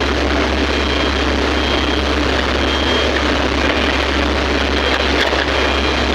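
Excavator's diesel engine running steadily, a constant low drone under loud, even mechanical noise.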